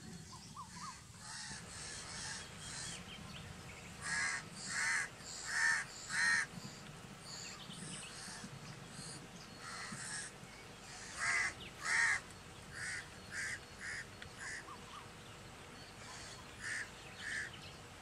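A crow cawing repeatedly in short, separate calls: a run of four caws about four seconds in, a scattered series a few seconds later, and two more near the end.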